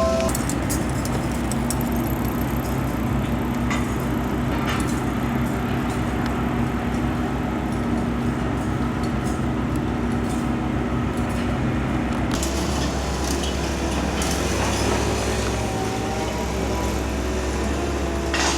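A vehicle engine running steadily with a low hum, which shifts to a deeper tone about twelve seconds in.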